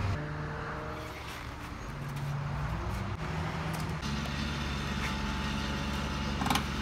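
Vehicle engine running steadily at idle, a low hum that shifts slightly in pitch a few times, with a short knock near the end.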